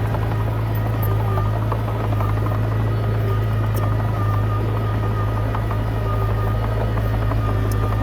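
Diesel engine of a Komatsu D20P bulldozer running steadily under load with a constant low drone.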